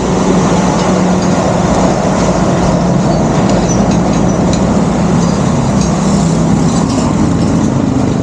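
A vehicle on the move: a steady engine drone under continuous road and wind noise.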